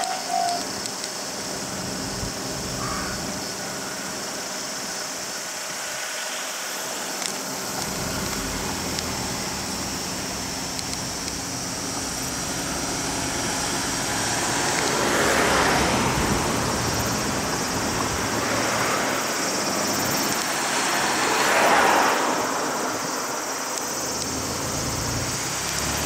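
Road traffic: cars driving past one after another, with engine and tyre noise swelling as the loudest pass about halfway through and again a few seconds later. A railway level-crossing warning bell stops ringing just as it begins.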